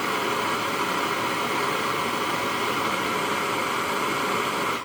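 Gas torch flame hissing steadily as it heats a steel screwdriver shaft toward red hot, burning the chrome plating off; the hiss cuts off suddenly at the very end.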